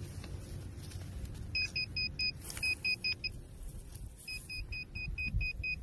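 Metal-detecting pinpointer beeping in runs of short beeps, about five a second, as it is probed into a freshly dug hole: it is sounding on a metal target in the soil.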